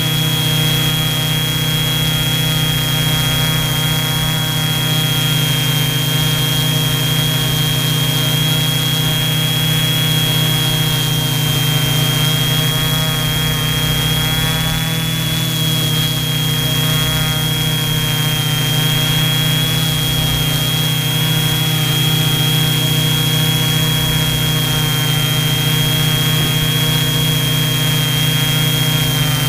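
Six Sunnysky V3508 580Kv brushless motors of an FY690 hexacopter spinning their propellers in a hover: a steady, loud drone with a thin high whine on top, heard from the camera mounted on the frame.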